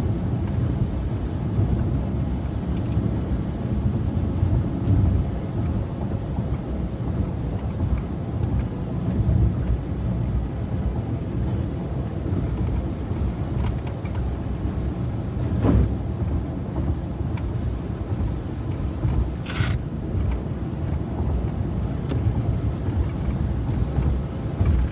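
Steady road and engine rumble heard from inside a moving car's cabin, with a short hiss about three-quarters of the way through.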